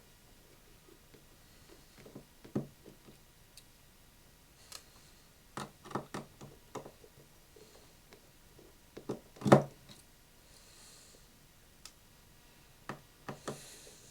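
Scattered light clicks and taps of small tools and parts being handled while taking an iPhone 6 Plus apart, with one sharper tap about nine and a half seconds in.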